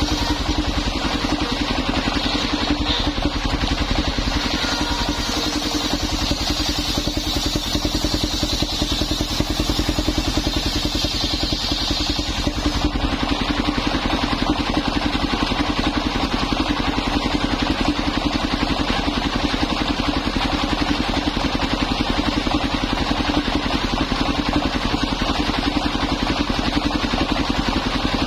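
Belt-driven circular sawmill with its stationary engine running steadily, the blade ripping through old coconut wood for roughly the first twelve seconds, then spinning on without cutting.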